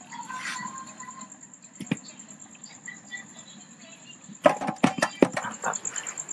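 Steady, high, pulsing chirring of night insects, with a single click about two seconds in. A quick run of sharp knocks and clatter about four and a half seconds in is the loudest sound.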